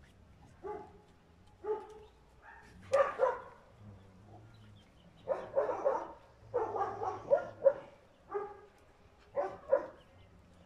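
Dog barking repeatedly, in single barks and quick runs of several, with short pauses between.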